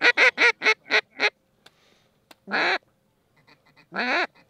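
A hunter's waterfowl call blown close by: a fast run of quacking notes, about five a second, that stops about a second in, then two longer single calls near the middle and near the end.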